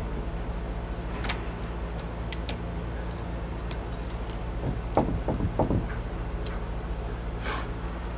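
Sharp clicks and a cluster of knocks as a sailboat rudder, jammed in its tube, is wrenched and shifted by hand, over a steady low hum.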